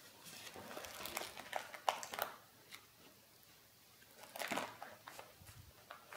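Sketchbook paper pages rustling and crinkling as they are turned and handled: a run of crisp crackles over the first couple of seconds, then a shorter bout about four and a half seconds in, with a few light clicks after it.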